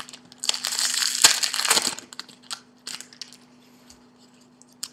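Crinkling and rustling of a trading-card pack wrapper being handled, loud for about a second and a half, then a few light clicks and taps as the cards are handled.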